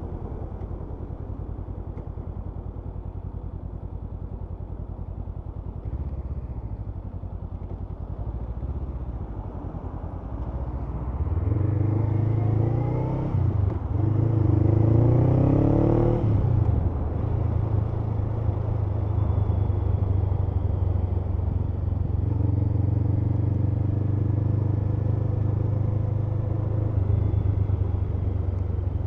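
Honda CMX500 Rebel's parallel-twin engine, running low and steady at first. About eleven seconds in it revs up through two gears, with a short dip at the shift between, then settles into a steady cruise.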